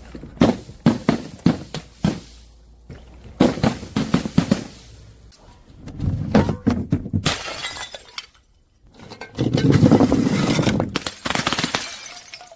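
Brittle things being crushed and broken: a quick run of sharp crunching cracks, then two longer stretches of crunching and shattering glass.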